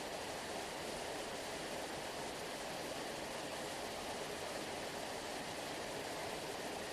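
Sea surf making a steady, even rushing like a waterfall, with no separate wave breaks.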